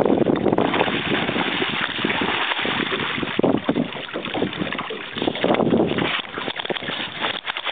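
Wind buffeting the microphone, with irregular splashing from a hooked catfish thrashing at the water's surface beside the boat; the splashes come in short, uneven bursts from about halfway in.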